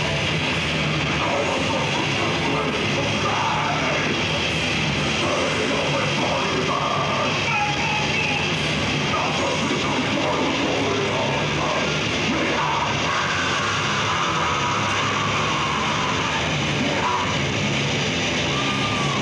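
Death metal band playing live: a dense, steady wall of distorted guitars and drums.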